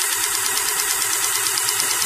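Paper-feed mechanism of an Analox analyser's small ribbon printer running with the paper advance button held, drawing a new paper roll through: a steady mechanical whir with a fast, even ticking.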